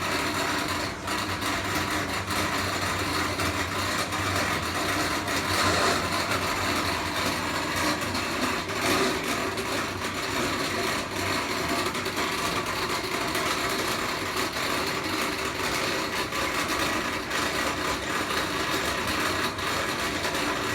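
LG WT7100CW top-load washer draining, its drain pump running with a steady rattling mechanical noise, which the owner takes for a bad pump.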